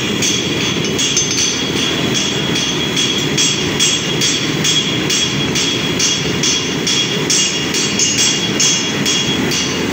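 Forced-air burner blowing a flame into a blacksmith's coal forge: a steady rushing noise, with a faint regular high pulsing about three times a second.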